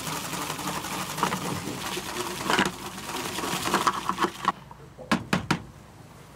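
Plastic salad spinner, rebuilt as a salt centrifuge, whirring with a fast plastic rattle as it spins damp sea salt to throw off the brine. The whirr stops suddenly about two thirds of the way through, followed by a few sharp clicks.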